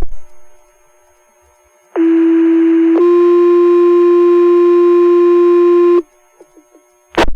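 Two-tone sequential fire paging tone over the dispatch radio: a first tone for about a second, then a second, different tone held for about three seconds, setting off the volunteer firefighters' pagers for a new call. A radio click comes at the start and a short key-up burst near the end.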